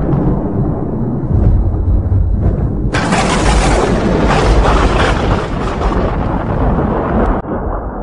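Thunder rumbling low and heavy, then a louder crackling peal of thunder from about three seconds in that lasts about four seconds and cuts off abruptly near the end.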